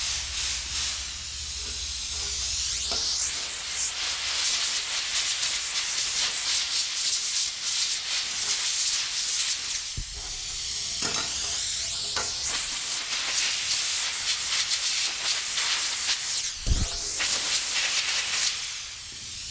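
A cheap compressed-air blow gun blowing a steady hiss of air, its trigger stuck open, with a few brief knocks.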